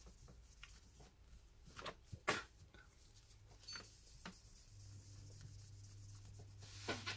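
Faint, scattered clicks and light taps of small tools being handled on a tablet's frame. A low steady hum comes in about two-thirds of the way through.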